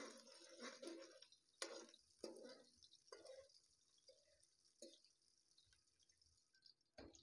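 Sliced onions frying faintly in oil in a metal wok. A steel spoon stirs them and clicks against the pan a few times, mostly in the first few seconds.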